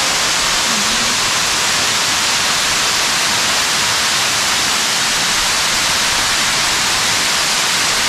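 Tall waterfall dropping into a sinkhole: a loud, steady rush of falling water.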